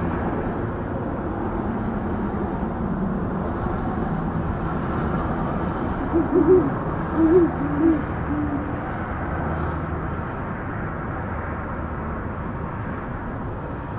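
Owl hooting: a run of about five short hoots about six seconds in, the last one longer and level, over a steady low background hum.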